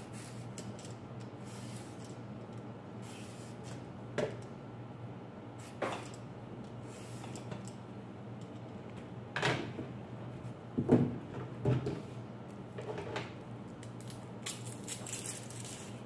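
Hand vegetable peeler scraping a carrot in short strokes, with a handful of sharp knocks of the peeler and vegetables on the cutting board, the loudest about eleven seconds in. A steady low hum runs underneath.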